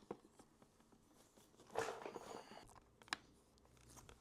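Faint handling sounds of motorcycle fairing parts being fitted: a few light clicks and knocks, with a brief scraping rustle about two seconds in.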